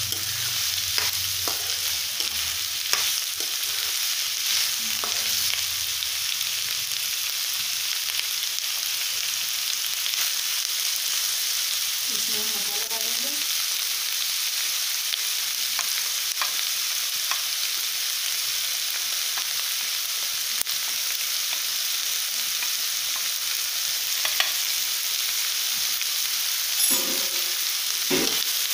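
Chopped capsicum and onion sizzling in hot oil as they sauté in a kadai, a steady frying hiss, with a steel spoon scraping and clicking against the pan now and then as it stirs.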